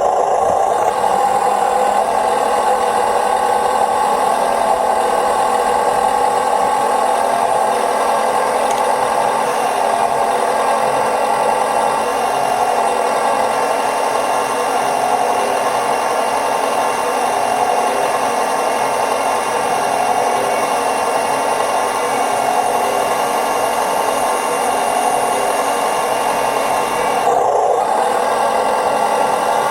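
Radio-controlled model tractors and farm machines running, a steady mechanical whine and hum of small motors and gearing that dips briefly near the end.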